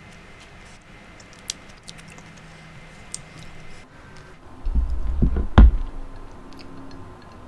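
Soft, close-miked mouth clicks of chewing with the lips closed. About five seconds in, a low rumbling bump and one sharp knock as a glass mug is picked up from the table.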